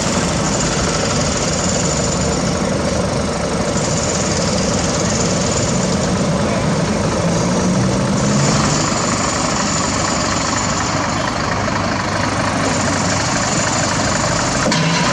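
Heavy diesel engine of construction machinery running steadily, with its note shifting slightly about halfway through.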